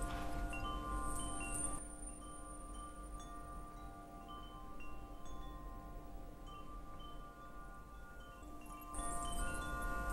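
Quiet background score: a held chord of sustained tones with light, chime-like high notes twinkling over it. It drops softer about two seconds in and swells again near the end.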